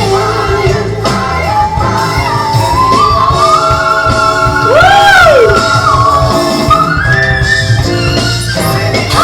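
A woman singing a soaring gospel-pop ballad over a full band, climbing to a long, high held note with a quick rise-and-fall vocal flourish about five seconds in.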